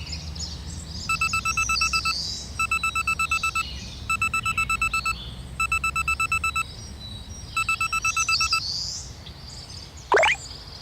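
Electronic warning beeps from an animated level crossing: a steady two-tone beep pulsed about nine times a second, in five bursts of about a second each, the last after a slightly longer pause. A short loud rising glide follows near the end.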